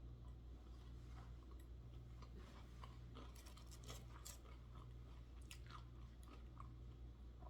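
Faint chewing of crispy fried food close to the microphone, with soft crunches and mouth clicks scattered through, over a steady low hum.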